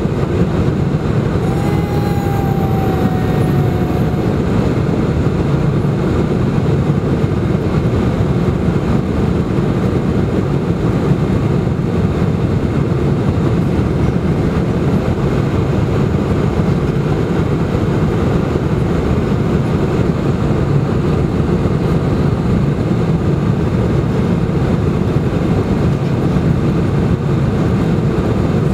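Steady jet airliner cabin noise: the engines and airflow give an even rumble, heard from a window seat over the wing during descent to landing.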